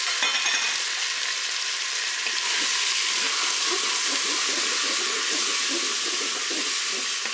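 Chicken pieces and onions sizzling steadily in hot oil in a Cookeo multicooker's bowl on browning mode, with a few light clicks just after the start. From about two seconds in, a wooden spoon stirs and scrapes them around the bowl.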